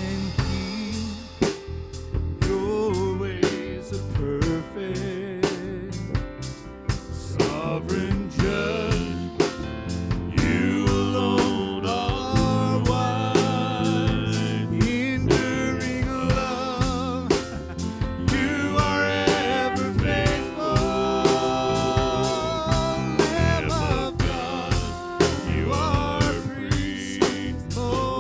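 Live praise band playing a song with a steady drum-kit beat under guitar and other sustained instruments.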